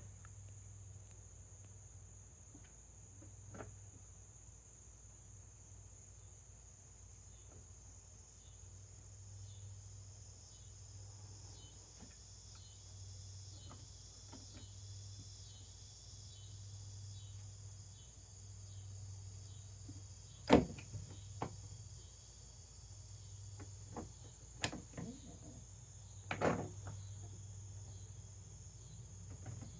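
Crickets chirping steadily over a low hum, with a few sharp clicks or knocks, the loudest about twenty seconds in and two more a few seconds later.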